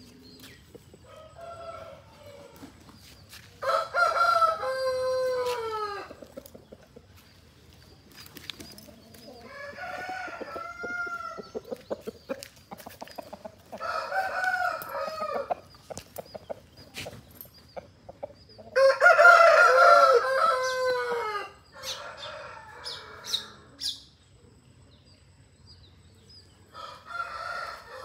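Aseel roosters crowing in turn, several long crows that fall away at the end. The two loudest come about four seconds in and about two-thirds of the way through, with fainter, more distant crows between them and near the end.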